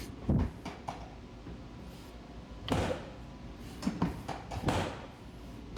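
A few scattered soft thumps and knocks, with some rustling, from a person moving on a padded chiropractic treatment table.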